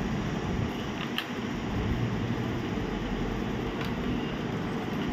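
Steady background hum of a running fan or similar machinery. Two faint clicks, about one and four seconds in, come from the laptop's display ribbon cable and motherboard being handled.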